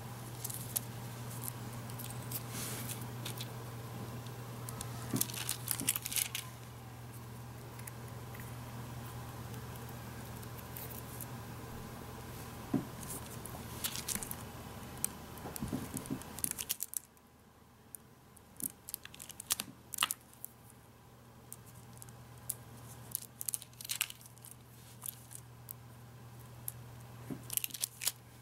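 Small handling sounds: scattered light clicks, scrapes and crinkles of plastic film as a metal piping tip presses rounds out of a thin chocolate sheet on its plastic backing. A steady low electrical hum runs underneath and drops abruptly about two thirds of the way through.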